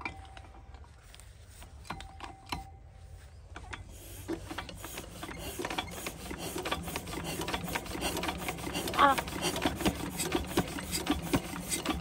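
A 12 hp single-cylinder stationary diesel water-pump engine with twin flywheels is being hand-cranked. From about four seconds in it gives a fast mechanical clatter that speeds up and grows louder as the flywheels gather speed for a start.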